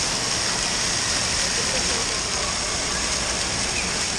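Indoor water park din: a steady rush of spraying and falling water with a babble of distant voices mixed in.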